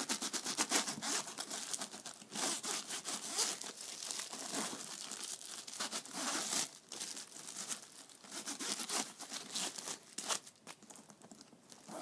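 Wax paper rubbed back and forth along the metal teeth of a handbag zipper, a scratchy rasping in quick irregular strokes with some paper crinkling, easing off near the end. The zipper is being waxed because it sticks and pulls hard.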